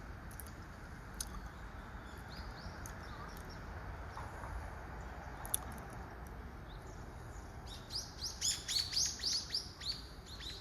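Small bird chirping: a few faint high calls, then from about three-quarters of the way in a rapid run of sharp, high, downward-slurred chirps.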